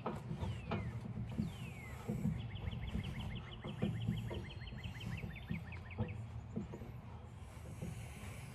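A man straining with short grunts and breaths as he heaves a tire-and-hub assembly onto an axle spindle. Behind it a bird gives two downward-slurred whistles, then a long, fast trill of about nine notes a second that slows near its end.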